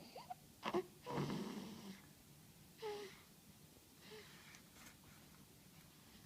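Snoring in sleep: a few wheezy, whistling snorts and breaths. The loudest is a long noisy breath about a second in, then a shorter whistling snort, then fainter breaths.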